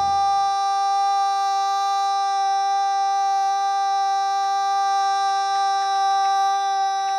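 A male singer holds one long, loud final note at a steady pitch, without words. The band's low accompaniment stops about half a second in and leaves the voice alone.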